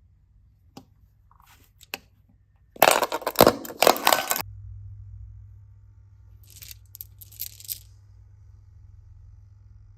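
Clattering and clicking of small hard objects being handled, loudest in a dense burst of about a second and a half near the middle. A few single clicks come before it and fainter crackles come a few seconds after, over a steady low hum.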